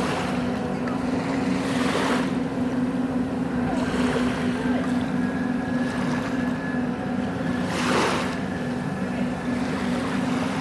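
Steady low hum of the BC Ferries MV Salish Orca's engines and propulsion as the ferry pulls away, with two brief whooshes over it.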